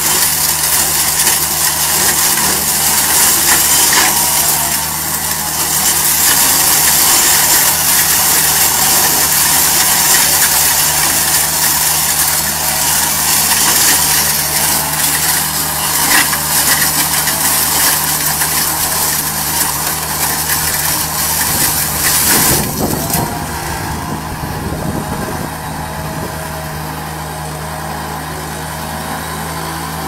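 Compact GiANT loader's engine running steadily while the hedge-trimming head on its boom cuts through a hedge, a dense high hiss over the engine's low drone. The cutting hiss drops back about three-quarters of the way through, leaving mostly the engine.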